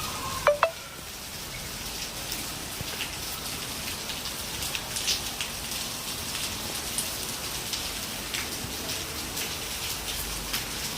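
Steady rain falling on a surface, an even hiss with scattered drop ticks. Two sharp clicks come about half a second in.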